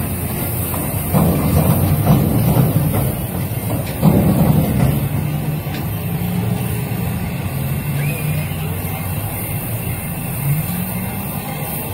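A low engine hum that holds steady and slides up in pitch near the end, with indistinct voices in the background.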